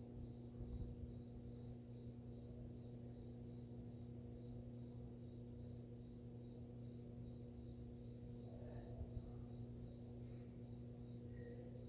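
Aquarium pump running with a faint, steady hum.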